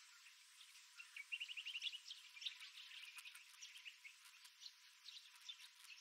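Several small birds chirping and calling faintly, many short overlapping notes, with a quick run of about ten evenly repeated notes about a second in.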